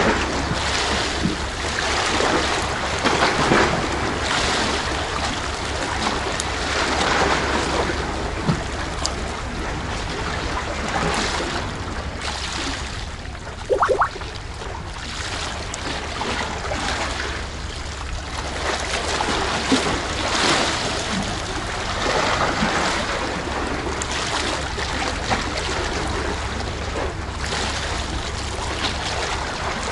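Sea waves washing and surging against a tetrapod breakwater, swelling and falling back every few seconds, with wind buffeting the microphone. A brief short squeak about halfway through.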